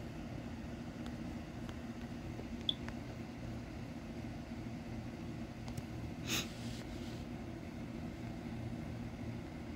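Low steady hum of room noise, with a faint click about three seconds in and a short hiss a little after six seconds.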